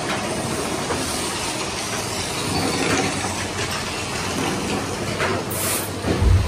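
Big Thunder Mountain Railroad mine-train coaster rattling along its track, with wind and track noise. A heavy low rumble comes in near the end.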